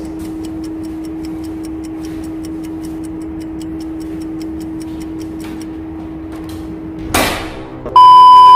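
A steady low hum with quick, even clock-like ticking, then a short burst of static and a loud, steady test-tone beep of a TV colour-bar transition near the end.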